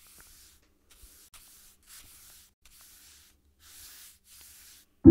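A series of about seven short, faint scratchy strokes, like a dry paintbrush dragged across a surface, each lasting a fraction of a second with short gaps between. Music comes in suddenly at the very end.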